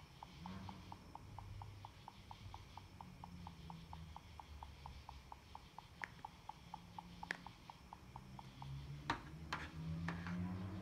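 Salt-water-soaked Fisher-Price talking puppy toy malfunctioning: its speaker gives a faint, even ticking, about five ticks a second, which stops near the end. Several sharper clicks of its buttons being pressed come in the second half.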